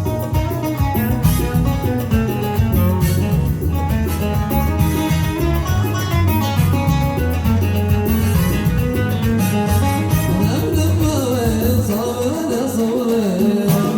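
Lahji wedding zaffa music: an electronic keyboard plays a melody over a steady drum beat, and a voice comes in singing about ten seconds in.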